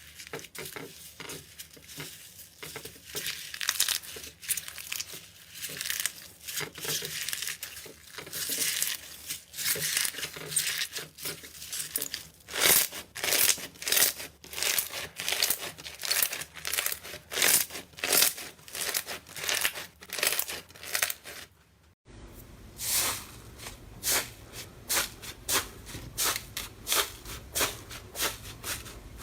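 Slime being squeezed and worked by hand, making sticky, crackling pops in a steady rhythm of squeezes. The sound changes abruptly about two-thirds of the way through, as a different batch of slime takes over.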